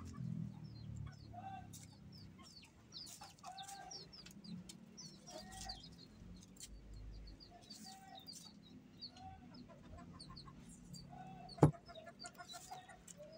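Domestic chickens clucking, short calls repeating about once a second, with thin high chirps among them. A single sharp knock near the end is the loudest sound.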